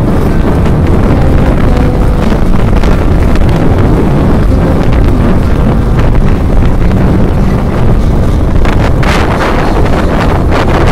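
Loud, steady wind rushing over the microphone of a moving motorcycle, with the bike's engine running underneath.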